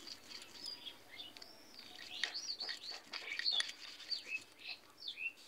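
Small birds chirping in short repeated calls, over the scraping strokes of a hand grinding stone crushing leafy greens and dried red chillies into a paste on a stone slab (sil-nora).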